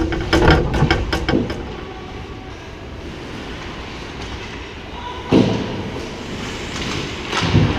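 Ice hockey play at close range: sticks and puck clacking and skates scraping in a flurry of sharp hits for the first second and a half, then steady rink noise. A loud bang comes about five seconds in, and more clatter near the end.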